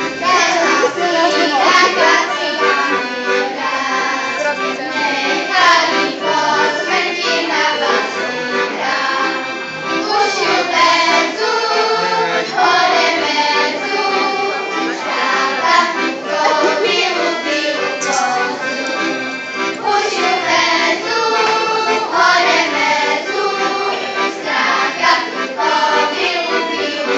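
Accordion playing a traditional folk tune, with children's voices singing along.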